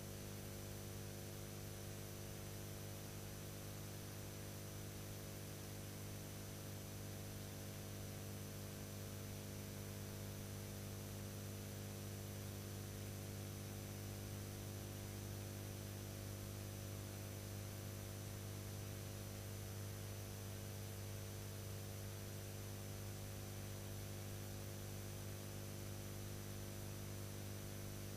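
Steady electrical mains hum, strongest low down with several fainter higher tones, over a constant background hiss. It does not change through the scene cuts, the sign of hum and hiss on the soundtrack of a silent archival film rather than of anything shown.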